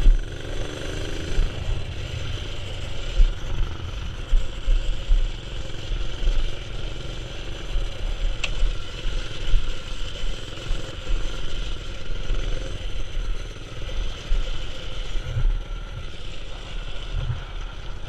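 Predator 212 single-cylinder four-stroke engine of a mini-bike running under a rider on a rough descent, with heavy irregular wind rumble on the microphone. A single sharp click about eight and a half seconds in.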